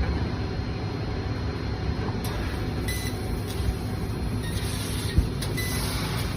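Kingmac LX Show 1500 W laser cutting machine running, a steady low mechanical hum. A hiss comes in about two seconds in and grows stronger near the end, with a single short knock about five seconds in.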